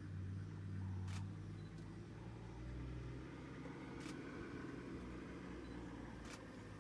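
Safari vehicle's engine idling with a low, steady hum, and three sharp clicks about a second, four seconds and six seconds in.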